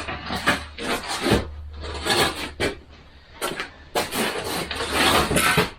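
Chicken wire being pulled and stretched around a wooden pen frame: irregular scraping and rubbing of wire against wood, with a few sharp knocks.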